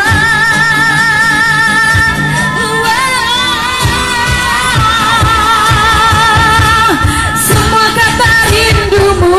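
A woman singing an Indonesian pop ballad live with a band, holding the last word of the chorus as a long note with vibrato, over acoustic guitar accompaniment.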